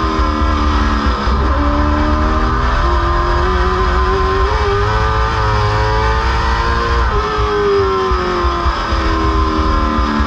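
Late model stock car's V8 engine heard from inside the cockpit on a lap. The revs fall off through a turn, climb steadily down the straight, drop as the driver lifts about seven seconds in, and pick up again near the end.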